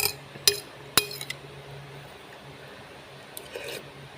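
A utensil clinking against a bowl of noodles, four sharp clinks about half a second apart in the first second and a half, then a softer, longer sound about three and a half seconds in. A low steady hum runs underneath.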